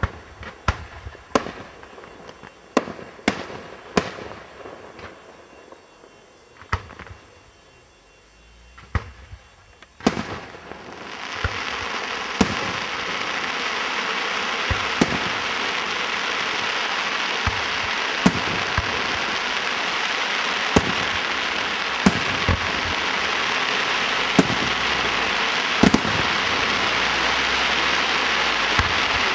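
Aerial fireworks going off: sharp shell bursts a second or so apart, then about ten seconds in a dense, steady crackling hiss sets in and carries on under further bursts every one to three seconds.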